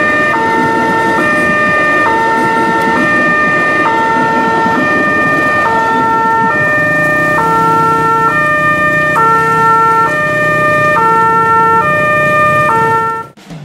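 Level crossing's electronic warning alarm sounding a two-tone high–low pattern, each tone held just under a second. Under it, the rumble of a passenger train passing over the crossing fades out about halfway through, and motorcycle engines run as traffic waits at the barrier. The alarm cuts off suddenly near the end.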